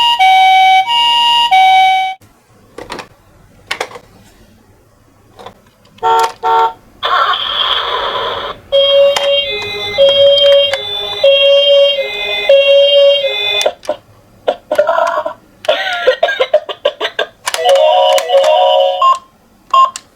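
Toy ambulance's electronic hi-lo siren, two tones alternating about twice a second, cutting off about two seconds in. After a few clicks and a short burst of hiss, a lower two-tone siren plays for about five seconds, then further short electronic siren patterns start and stop.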